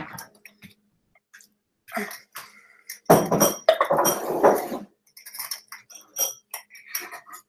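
Small glass yogurt jar clinking and scraping against a glass clamp-lid jar as it is pushed down onto packed sauerkraut. There is a longer scraping, rustling stretch from about three to five seconds in, then a string of light glassy clinks.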